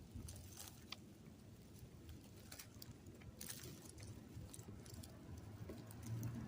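Faint scattered rustling and small clicks, as of leaves or of a phone being handled close to the ground, over a low hum that grows slightly louder near the end.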